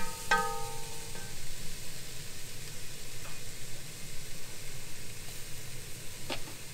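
Onion, garlic and fennel sizzling in butter in a pot, a steady hiss. A short ringing clink sounds just after the start, and a sharp tick comes near the end.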